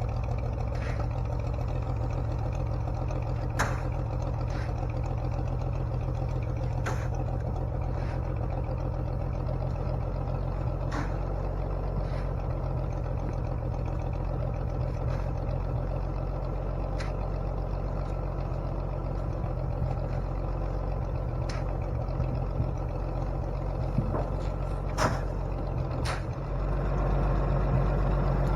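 Farmall 560 tractor's six-cylinder engine running steadily, freshly tuned with a new distributor, plugs and wires, with a few sharp clanks over it. Near the end the engine grows louder.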